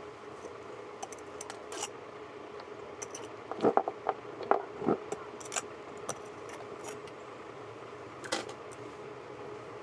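Scattered light metallic clicks and knocks of nuts and tools being handled while a small electric fan motor is taken apart, with a cluster of louder knocks a little before the middle.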